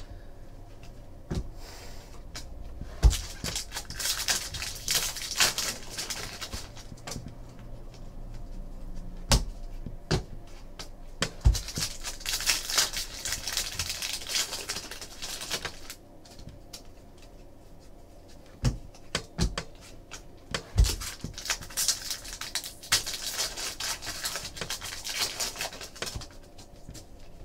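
Plastic wrappers of trading-card packs crinkling and tearing open in three long crackly bouts. Sharp taps and clicks of cards being handled on the desk fall in between.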